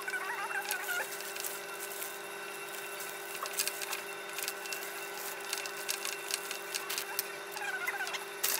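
Clear cellophane wrap crinkling and rustling as it is gathered and tied around a gift stand, over a steady low hum. A few short warbling bird calls come just after the start and again near the end.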